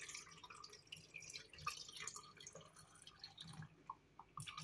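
Coconut milk being poured into a plastic blender jar over beet chunks and yogurt: faint, irregular trickling and small splashes.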